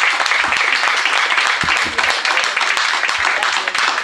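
Audience applauding, with steady, dense hand clapping throughout.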